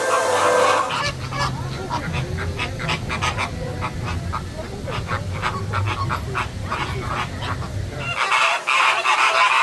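A flock of flamingos honking, many goose-like calls overlapping, louder in the last second or so. Music briefly at the very start.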